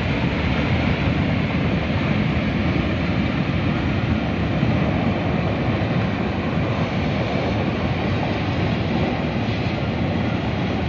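Muddy flash-flood water rushing across a road in a steady, even roar with a deep rumble.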